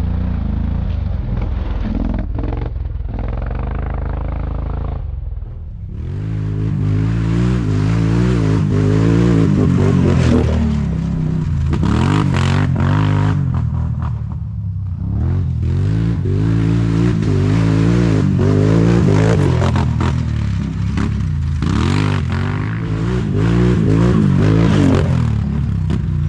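Can-Am Renegade ATV engine revving hard and dropping back again and again as it is ridden along a sandy trail, heard from on board, its pitch rising and falling every second or two. For the first five seconds or so a steadier engine sound runs at a distance.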